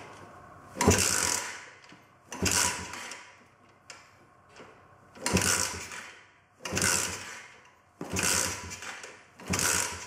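An 80cc pocket bike's four-stroke single, freshly primed with fuel, being kick-started six times: each kick gives a short burst of the engine turning over, but it never catches. The kicks come about every second and a half, with one longer pause near the middle.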